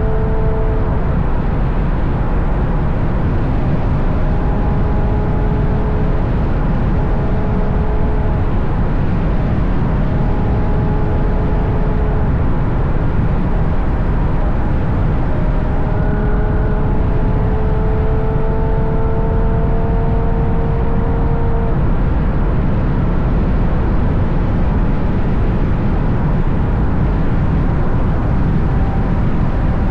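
Ferrari GTC4Lusso with a Capristo exhaust cruising at road speed, heard from a camera mounted on the car's exterior. A steady rush of wind and tyre noise dominates. The V12's exhaust hum comes through now and then, rising slowly for several seconds past the middle.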